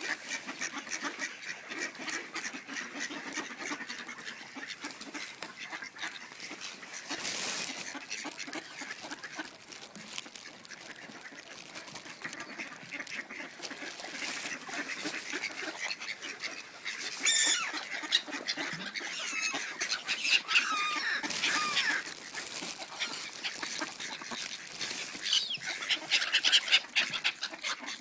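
Mallard ducks quacking, many calls overlapping, with louder bursts of calling in the second half.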